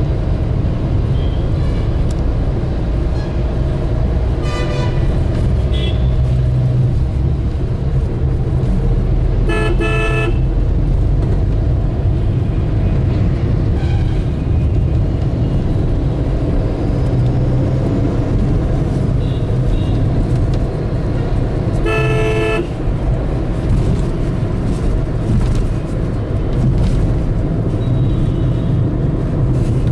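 Steady rumble of road traffic with vehicle horns honking several times; the two loudest honks come at about ten seconds and about twenty-two seconds in, each lasting under a second.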